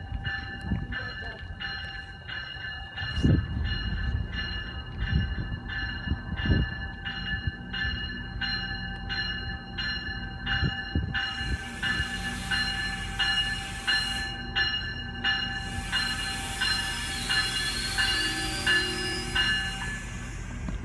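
GO Transit bi-level cab car's bell ringing steadily, about one and a half strokes a second, as the train pulls into the station. From about halfway a loud hiss of brakes and wheel squeal joins it, with a brief rising squeal near the end.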